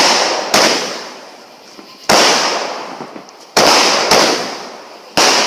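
Fireworks going off close by: about six sharp bangs, some in quick pairs about half a second apart, each followed by a fading crackling hiss.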